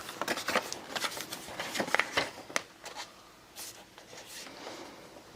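Paper being handled and trimmed: light rustling with a run of small clicks and taps, busiest over the first three seconds, then fainter.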